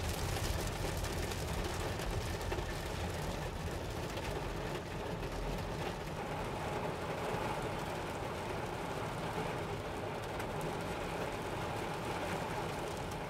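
Heavy rain pelting the roof and windshield of a car, heard from inside the cabin as a steady, loud rush.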